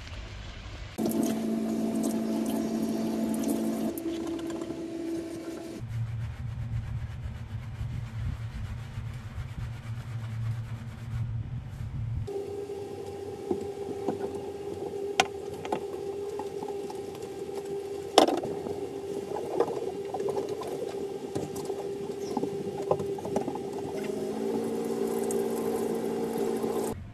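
Water running from a handheld shower head into a camper van washbasin as hair is rinsed, under a steady hum, with a few sharp knocks and splashes; one knock past the middle is the loudest.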